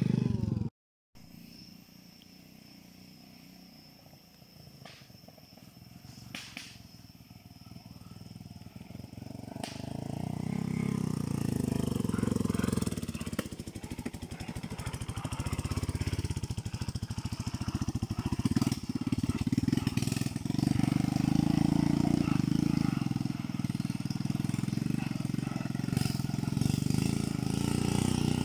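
Small motorbike engines running on a dirt trail. They are quiet at first, then grow loud about a third of the way in as bikes ride past, the engine note swelling and dropping with the throttle.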